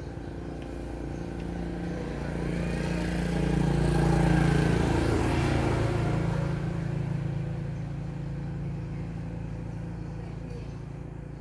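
A motor vehicle passing over a steady low hum, its noise swelling to a peak about four seconds in and slowly fading away.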